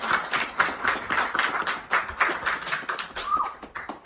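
Applause from a small group of listeners: dense, irregular hand claps that thin out and grow quieter near the end.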